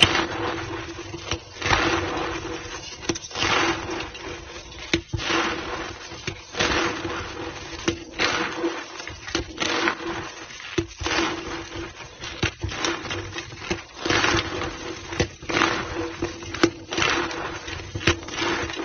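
Reformed white gym chalk blocks being crushed and crumbled, with repeated crunches about once a second.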